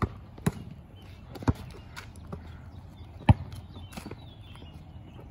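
A basketball bouncing on the court: about six separate thumps at an uneven pace, the loudest a little past halfway.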